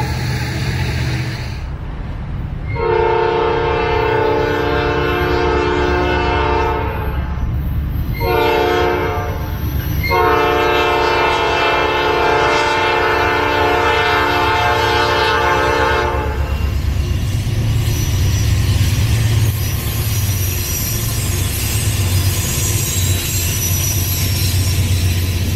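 Freight locomotive air horn sounding a long blast, a short blast and a longer blast. The low rumble of the freight train's autorack cars rolling past follows.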